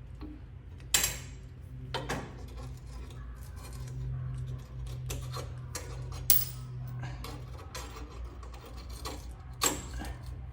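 Scattered sharp clicks and knocks over a low steady hum, the loudest about a second in.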